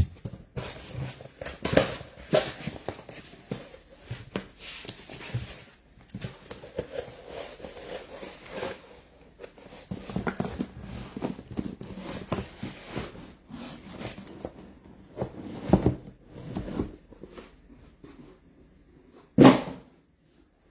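Cardboard boxes and packaging being handled: irregular rustling, crinkling and light knocks, with one sharper knock about a second before the end.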